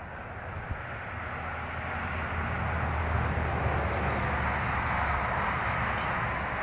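A steady vehicle-like rumble with a low hum, growing louder over the first few seconds and then holding steady.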